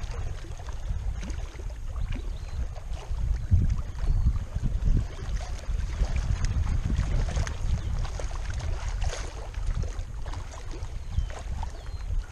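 Wind buffeting the action camera's microphone in an uneven low rumble, with choppy lake water lapping at the rocky shore.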